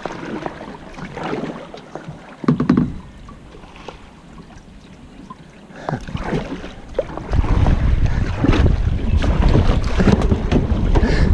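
Kayak paddle strokes splashing and dripping in calm river water. About seven seconds in, a loud low rumble of wind on the microphone comes in under the paddling.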